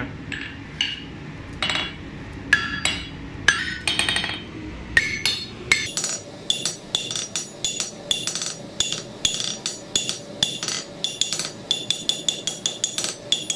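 Hand hammer striking a red-hot steel bar over the sharp edge of a steel block on an anvil, drawing down a shoulder. Each blow gives a ringing clink. The blows are irregular at first, then settle into a steady rhythm of about two a second about halfway through.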